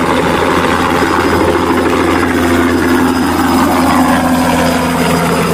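Light helicopter hovering low, its engine and rotor running steadily with a low drone and a faint high whine.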